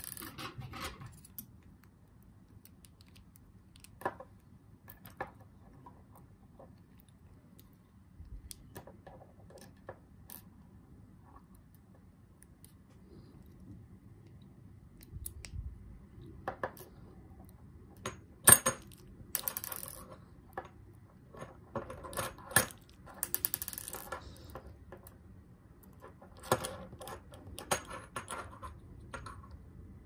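Small metallic clicks and clinks of a tool working inside a brass Lockwood 334 lock cylinder, scattered and irregular, thicker in the second half, with the sharpest click about eighteen seconds in.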